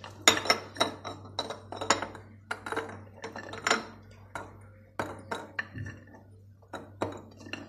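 Small glass jars clinking and knocking in a quick, irregular series of sharp clinks, each with a short glassy ring, as garlic cloves are packed into them for pickling.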